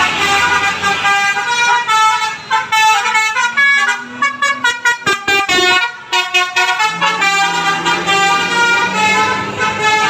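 Bus telolet horn, a multi-tone air horn, playing a tune of changing notes, with a run of short rapid toots about halfway through.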